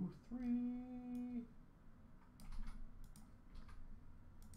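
Scattered computer mouse clicks and keyboard keystrokes. Near the start, a person hums one steady note for about a second.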